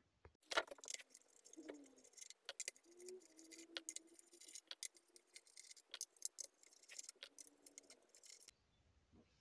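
Faint, scattered metallic clicks and ticks of an Allen key working small screws out of the BMW i3 inverter's metal cover plate, with a brief faint squeak a couple of seconds in.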